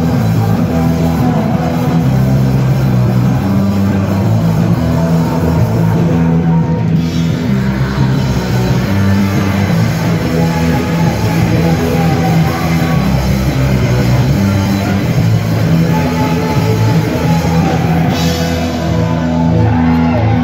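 Live punk rock band playing loudly, with no break.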